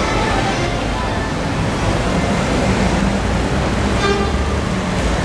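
City street traffic: cars and vans running past with a steady low engine rumble, and a short high-pitched sound about four seconds in.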